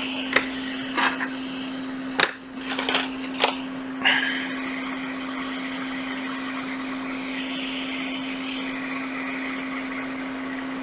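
Hot air rework station blowing steadily, a hiss with a low hum, as it heats a component on a laptop logic board to desolder it. A few sharp clicks sound in the first four seconds.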